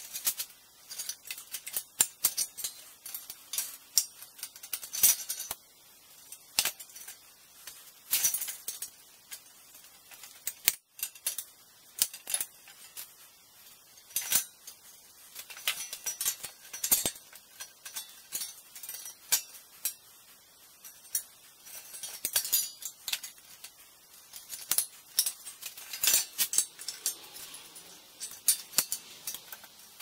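Thin sheet-metal windmill blades clinking and rattling against each other and the wheel's rim as they are handled and straightened: a run of irregular light metallic clicks and jangles.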